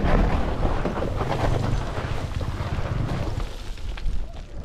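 Dirt bike engine running at low revs, weakening toward the end, with wind buffeting the microphone and scattered knocks and crunches of loose rock and gravel.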